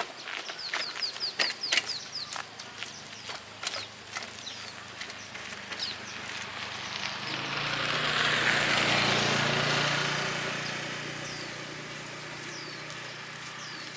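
A motorbike engine passing by with a steady hum. It swells to its loudest about eight to ten seconds in, then fades away. Before it, a few sharp knocks and clicks and short falling bird chirps.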